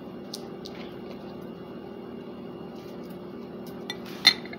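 A plastic squeeze bottle of ranch dressing is handled and squeezed upside down, with a few faint clicks and, about four seconds in, one short loud sputter. A steady low hum lies under it.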